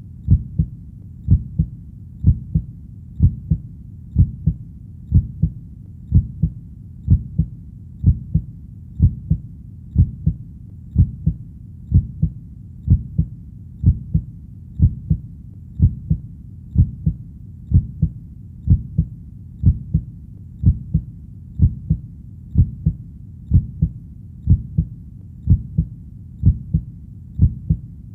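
Heartbeat beating steadily at about one beat a second. Each beat is a low double thump, lub-dub, over a faint low hiss.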